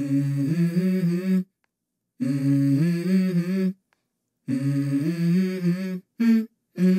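A voice humming a stepwise melody in phrases of about a second and a half, with short silences between them: the a cappella opening of the video's background song.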